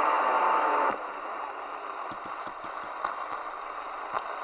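Midland Alan 8001 CB radio receiving an open channel between transmissions: a steady whistle cuts off about a second in, leaving band hiss, with a quick run of clicks in the middle and one more near the end.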